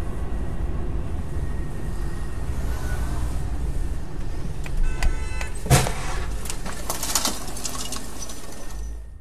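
Steady road and engine rumble of a car driving on a wet road, heard from inside the cabin. About five seconds in comes a brief tone, then a single sharp knock, followed by a few light clicks.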